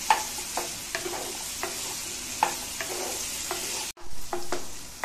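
Vegetables sizzling in hot oil in a nonstick pan while being sautéed with a spatula, which scrapes and taps against the pan about twice a second. The sound cuts out for an instant just before the end, then the stirring and sizzling go on.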